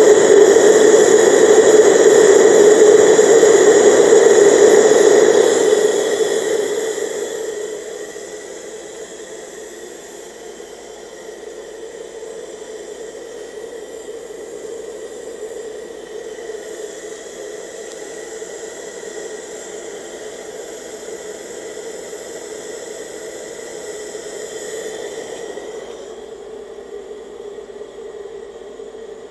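Gas torch burning into a small #10-can forge: a loud, steady rushing hiss that falls away over about two seconds some six seconds in, then carries on much quieter and steady.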